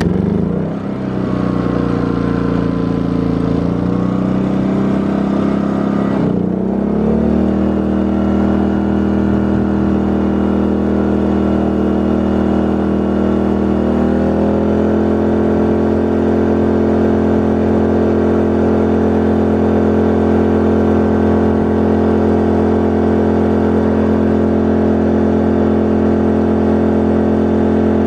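Small portable inverter generator engine running under test. Its pitch wavers in the first seconds, dips and recovers about six seconds in, and steps up to a higher, steady speed around fourteen seconds in.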